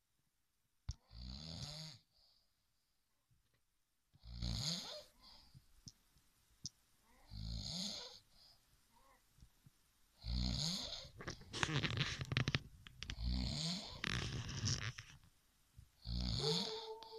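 Two sleepers snoring: rattling snores with a breathy hiss, spaced a few seconds apart at first, then coming closer together and overlapping from about halfway through.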